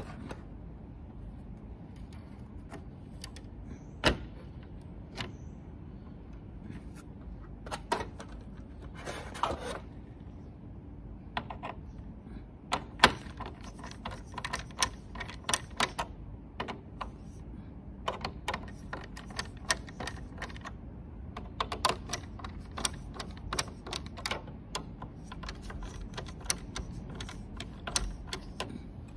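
Small sharp clicks and clinks of a hand screwdriver and screws against the metal chassis and circuit board of an induction cooktop, with wires being handled. Scattered at first, then in quick runs of ticks from about halfway on, over a steady low hum.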